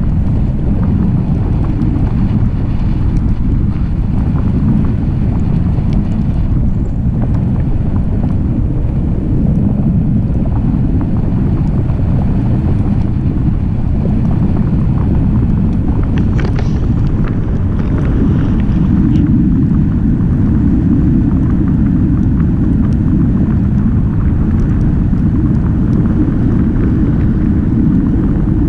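Steady, loud wind rush buffeting the camera microphone from the airflow of a tandem paraglider in flight.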